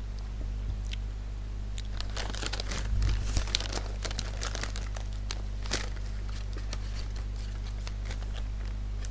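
Thin plastic bag crinkling and rustling as it is handled, in irregular bursts that are densest in the first half, over a steady low electrical hum.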